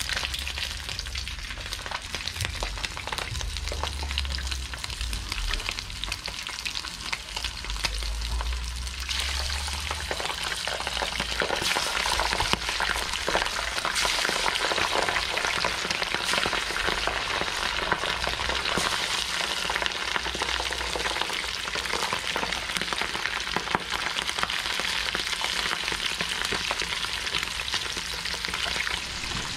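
Shishamo frying in shallow oil in a small pan: a steady crackling sizzle with many small pops, which grows louder and busier about nine seconds in.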